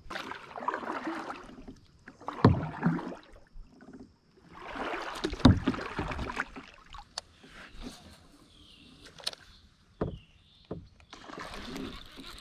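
Kayak paddle strokes: the blades swishing and splashing through the water, with a few sharp knocks, two of them louder than the rest.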